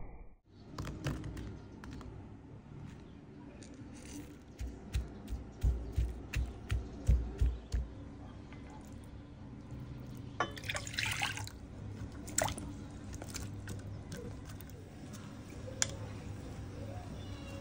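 Kitchen handling sounds around a glass bowl: a run of low knocks, scattered clinks of the spoon and chopsticks, and a brief splash of liquid being poured or stirred.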